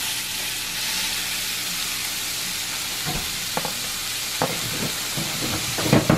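Chopped bacon sizzling in a hot stainless-steel frying pan: a steady frying hiss, with a few sharp pops and clicks in the second half, most of them near the end.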